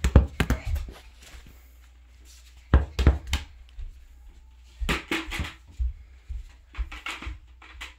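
Bunches of thuds and knocks as toy balls are thrown at a plastic bucket and land on a carpeted floor; at one point the bucket is knocked over.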